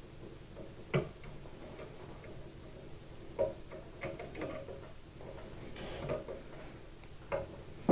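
Screwdriver turning a side-plate bolt into a rifle stock: faint clicks and scrapes of the blade in the screw slot, with a few sharper clicks about a second in, around the middle and near the end.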